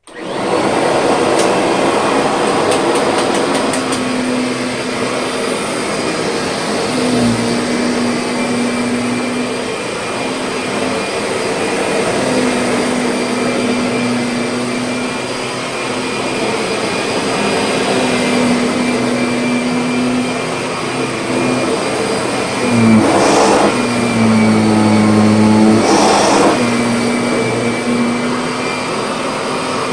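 Restored Kirby Sentria upright vacuum switched on and coming up to speed, then running steadily while pushed back and forth over carpet. A lower hum comes and goes with the strokes, and it swells louder twice in the latter part.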